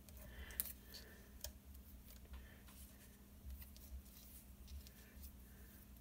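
Faint rustling and a few light taps of paper cut-out letters being handled and pressed down onto a scrapbook page, over a low steady hum.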